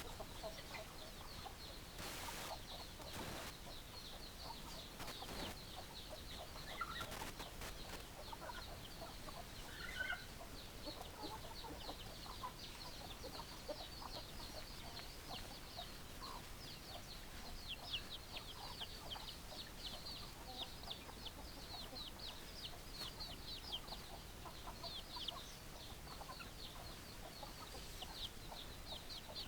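Chickens clucking, with a dense, rapid high chirping running throughout and a few sharp knocks in the first several seconds.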